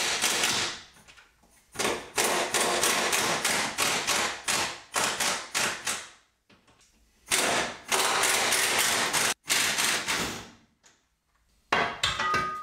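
Impact wrench hammering on the cross-member bolts in a series of bursts a second or two long, with short pauses between them.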